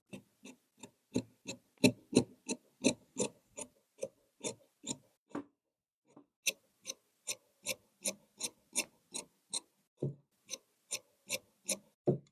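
Tailor's shears cutting fabric in steady crisp snips, about three a second, with a short pause about halfway through before the cutting resumes.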